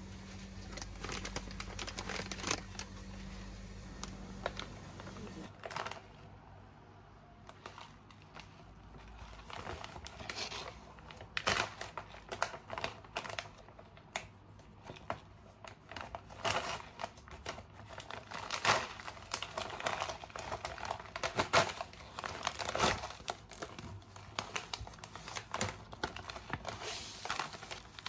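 Plastic wrapping on instant noodle packs crinkling and tearing as it is handled and pulled open, in many short sharp crackles that are densest and loudest in the second half. A steady low hum lies under the first few seconds.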